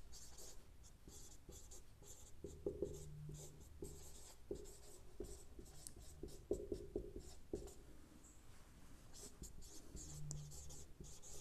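Marker pen writing on a whiteboard: a faint, irregular run of short strokes and light taps as a line of words is written out.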